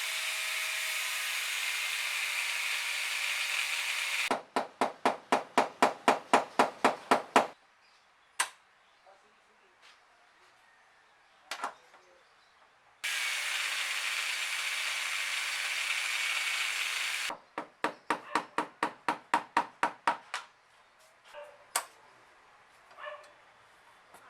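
A power tool runs steadily for about four seconds, then gives a run of strong, even knocks at about four a second. The pattern comes twice, with a few separate clicks of tools in the quiet between.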